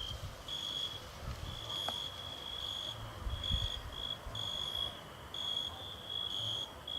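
Crickets chirping: a high, steady trill broken into short pulses, a little more than one a second.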